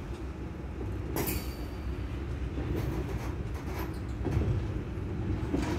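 Freight train covered hopper cars rolling past with a steady low rumble of steel wheels on rail, a few clanks over rail joints, and a brief high squeal about a second in.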